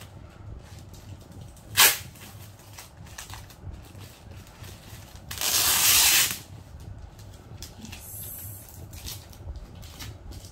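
Black plastic shipping bag being torn open and handled: a short sharp crack about two seconds in, then a loud tearing rip lasting about a second near the middle as a strip of plastic is pulled off, with light crinkling in between.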